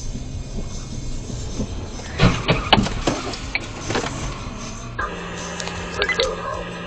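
Car crash across an intersection, heard from inside a moving car: a quick cluster of sharp bangs and knocks about two seconds in, over steady road and engine noise. A steady low hum sets in near the end.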